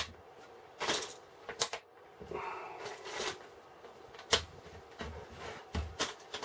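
Small plastic building-brick plates clicking and rattling as loose pieces are picked up and pressed onto the model: a string of sharp clicks, with a short rustle of pieces about two seconds in.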